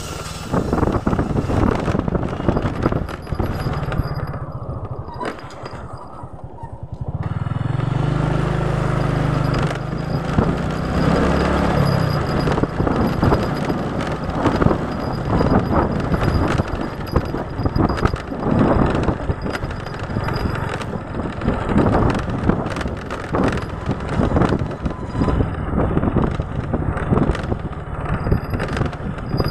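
Motorcycle riding along a rough village road, its engine running under wind noise and frequent knocks from road bumps on the handlebar-mounted camera. The sound dips about five seconds in, then the engine picks up again and its note climbs in steps as the bike accelerates.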